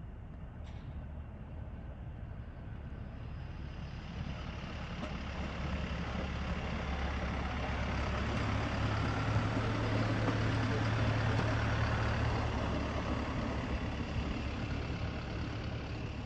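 Hi-rail inspection truck running along the railway track on its rail wheels, growing louder as it approaches, passing about nine to twelve seconds in, then fading as it moves away. A steady low hum runs underneath.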